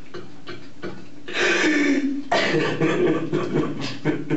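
A man sobbing into his hands. About a second in comes a breathy wail that falls in pitch, followed by broken, halting sobs.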